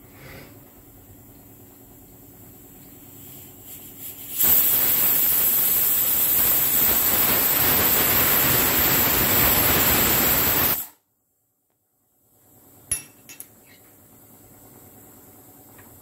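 Pigeon pressure cooker whistling: after a few short puffs, the whistle weight lifts and steam vents in a loud, steady hiss for about six seconds, the sign that the cooker has reached pressure. The hiss cuts off abruptly, and a couple of light clicks follow.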